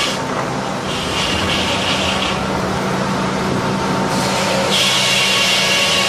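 Large circular sawmill blade on an electric motor cutting through timber, over a steady motor hum. The high cutting sound is weaker for much of the first part and comes back strongly just before five seconds, as the blade bites fully into the wood.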